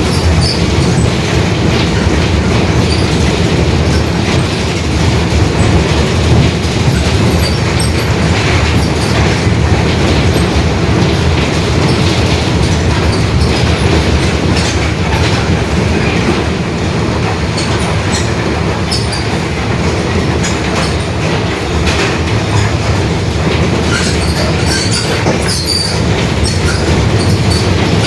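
Mercedes-Benz OF-1721 BlueTec 5 city bus under way: its front-mounted diesel engine and drivetrain run with a steady low drone, and the differential growls. Loose fittings in the body click and rattle throughout.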